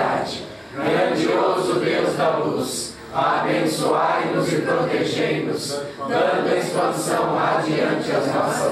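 Congregation chanting a Japanese norito prayer in unison, many voices together in long phrases broken by brief pauses for breath about every three seconds.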